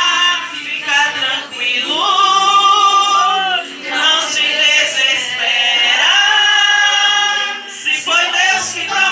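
Small group of women singing a Portuguese worship song, one voice carried on a microphone, with long held notes about two seconds in and again about six seconds in.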